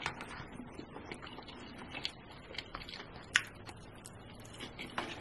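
Close-miked mukbang eating sounds: faint wet chewing and lip-smacking, with scattered small sharp clicks.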